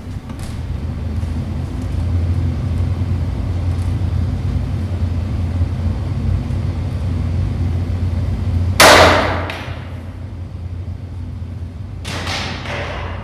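A steady low rumble that swells in over the first couple of seconds and then holds. About nine seconds in comes one very loud, sudden noise that dies away over about a second, and a few weaker sudden noises follow near the end.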